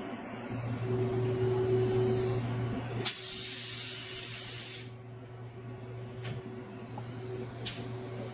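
A CNC loading cell running with a steady machine hum. About three seconds in, a click sets off a burst of compressed-air hiss of about two seconds, like a pneumatic blow-off or valve exhaust, and two sharp clicks follow near the end.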